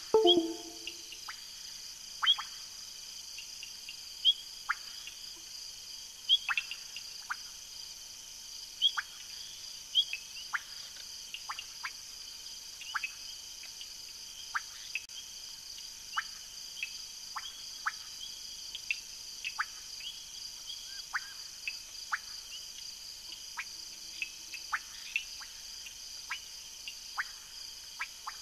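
Night bush chorus: insects trilling steadily at a high pitch, with short sharp descending chirps, typical of frogs, every second or so. A brief, louder, lower-pitched sound comes right at the start.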